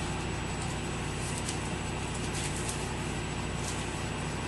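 Steady background hum and hiss, with a few faint ticks.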